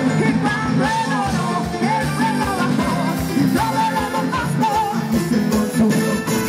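Upbeat live worship music from a band with singing and a steady drum beat, the congregation singing along.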